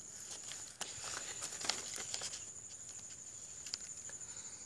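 Faint rustling and light ticks of paper sheets being handled and turned, mostly in the first half, over a steady high-pitched whine.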